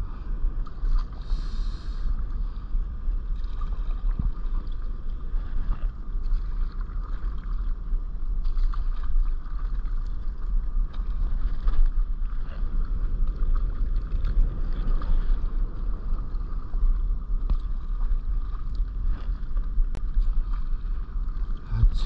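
Water splashing and sloshing around a stand-up paddleboard with irregular paddle strokes, over a steady low rumble.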